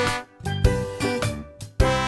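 Upbeat instrumental children's music: pitched melody notes over drum beats, with a brief dip in the sound shortly after the start.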